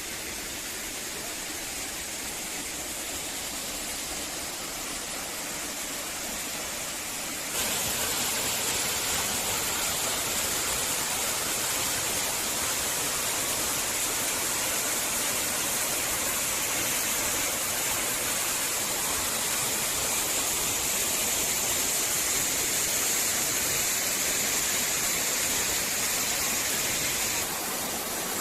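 Waterfall: a steady rush of falling water. It gets suddenly louder about seven seconds in and drops back shortly before the end.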